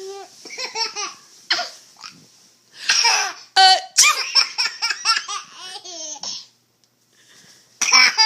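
A baby laughing in several bouts of rapid, high-pitched laughs. The longest runs from about three to six seconds in, and another starts near the end.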